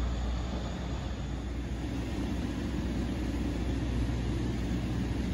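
Low, steady rumble of a distant NJ Transit ALP-45DP locomotive running on its diesel engine.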